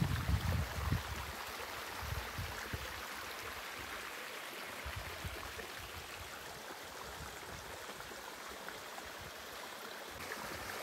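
Small waterfall and creek water running with a steady rushing hiss. A low rumble in the first second or two fades out.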